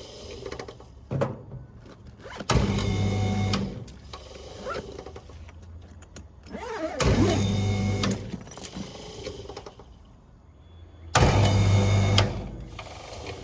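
Ducted air conditioner's outdoor unit clicking on with a loud electrical hum for about a second and cutting out again, three times about every four and a half seconds. It is short-cycling: the unit keeps getting the call to run and then dropping it.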